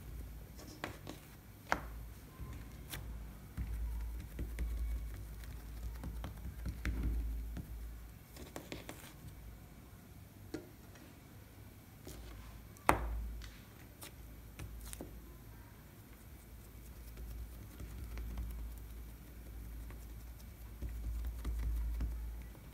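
Fingertips pressing and patting balls of kachori dough flat on a wooden tabletop: soft, irregular pats and rubs, with a few sharp clicks, the loudest about 13 seconds in, over a low rumble.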